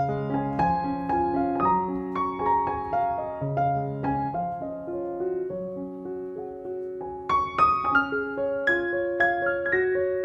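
Background piano music: a gentle melody of separate struck notes over sustained lower notes, climbing into a brighter, busier run about seven seconds in.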